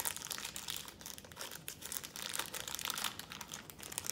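Crinkly wrapper of a small Wacky Packages pack being crinkled and pulled open by hand, with dense, irregular crackling.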